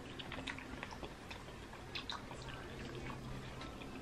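Quiet eating sounds: soft mouth clicks and smacks of chewing, with light taps of plastic forks on plates, over a low steady hum.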